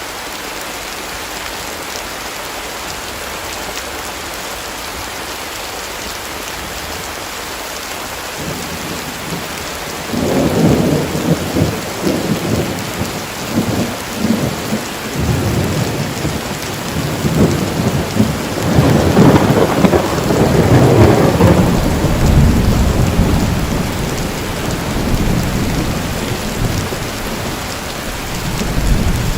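Steady heavy rain, joined about a third of the way in by a long roll of thunder that rumbles in waves, loudest past the middle, and dies down slowly.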